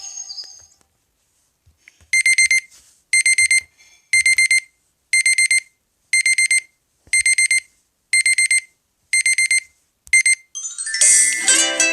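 LG G6 phone playing a digital alarm-clock tone: short groups of rapid high beeps, about one group a second, nine groups in all. Near the end a different melodic tone with a plucked sound starts.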